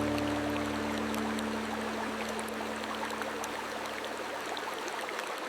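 A soft music pad of low held tones fading out over the first few seconds, over a steady rush of running water with faint scattered ticks.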